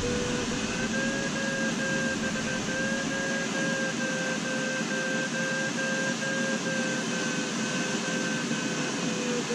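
Sailplane variometer beeping quickly at a steady pitch over the rush of air past the cockpit canopy, the audio sign that the glider is climbing in a thermal. The beep pitch steps up slightly about a second in and eases back down near the end.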